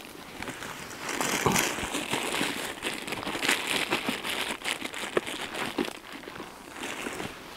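Close rustling and crinkling with many small crackles, louder from about a second in and easing near the end.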